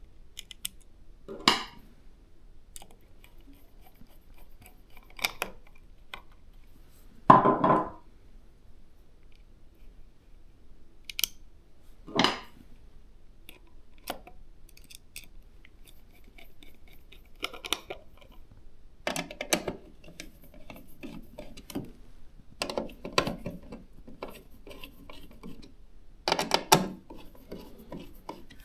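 Hands handling and fitting PC hardware while installing an AIO liquid cooler: scattered clicks, taps and rubbing of metal and plastic parts, with louder knocks about seven seconds in and near the end.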